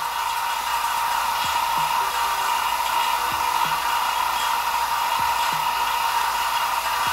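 Vacuum pump running steadily, with a strong steady hum and a faint low pulse about every two seconds, as it pumps the vacuum chamber down to about 0.1 atmospheres to degas the slime.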